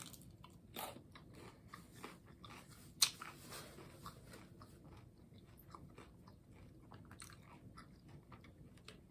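A person chewing and biting into a taco, with crunching and many small crackles. One sharper, louder crunch comes about three seconds in.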